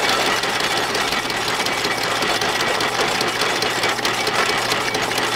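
Antique diamond core drilling machine running, a fast, even mechanical clatter with a steady hiss.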